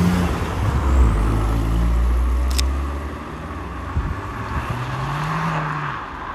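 Abarth hatchback's 1.4-litre turbocharged four-cylinder pulling away close by. Its exhaust note is loudest in the first three seconds and then fades as the car drives off. Near the end the revs climb again briefly as it accelerates down the road.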